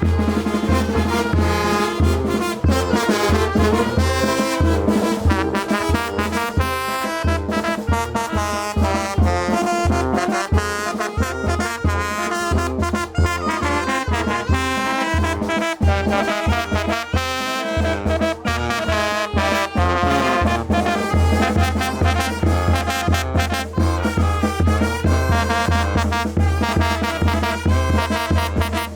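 Mexican brass band (banda de viento) playing a chilena: trumpets and trombones carry the tune over a steady, pulsing low bass line.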